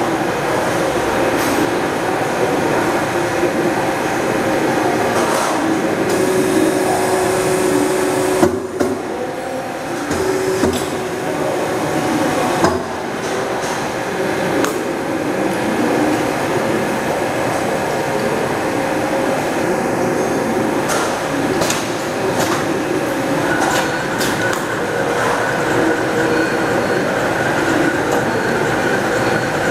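Wire forming and wire-tying machines running with a robot arm. They make a steady mechanical hum with several held tones, broken by sharp clicks and knocks.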